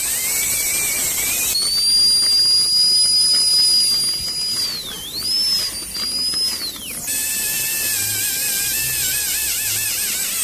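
Dental handpiece whining at a high pitch over a steady hiss of air and water spray, while working on a tooth for a composite restoration. About a second and a half in its pitch jumps up and holds. It dips briefly and recovers as the tool bears on the tooth, then drops back to a lower, wavering whine about seven seconds in.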